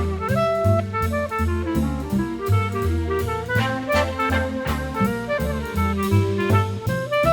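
Swing-style jazz: a walking bass, a drum kit keeping time, and a horn carrying the melody.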